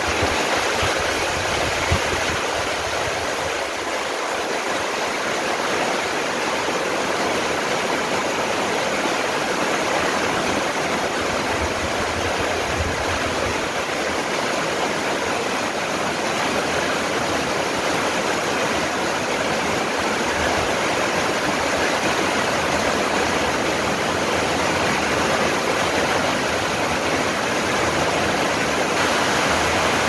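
Heavy rain falling steadily on garden trees and foliage, an even, dense hiss, with a low rumble coming and going now and then.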